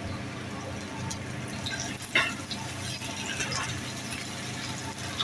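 Cut okra frying in oil in a non-stick pan with a steady sizzle as pieces are scraped in from a cutting board and stirred with a spatula, with one sharp knock about two seconds in.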